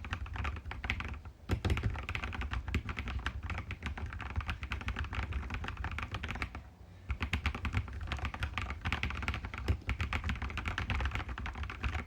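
Typing on a mechanical keyboard: a fast, dense run of key clacks, with a short pause about a second in and another just past the middle.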